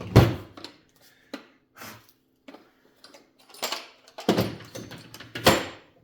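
Tools and metal parts handled on a workbench: a run of separate knocks and clatters with quiet gaps between, the loudest near the start and again about four and five and a half seconds in.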